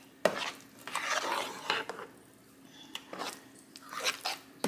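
A metal utensil stirring a thick, wet cornbread dressing mixture in a baking pan: irregular squishing and scraping strokes, with a sharper knock against the pan near the start and again near the end.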